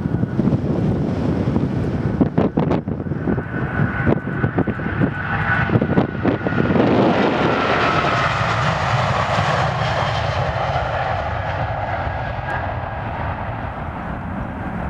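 Twin jet engines of a Delta Air Lines Boeing 777 at takeoff thrust, growing to their loudest as the plane rolls past and lifts off about seven to eight seconds in, with a steady whine over the rumble, then easing slightly as it climbs away. Wind buffets the microphone in the first few seconds.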